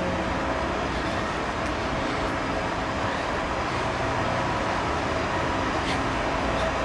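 Scheuchzer Grizzly 104 L rail-grinding train running, a constant machine noise with a couple of steady tones and no change in level.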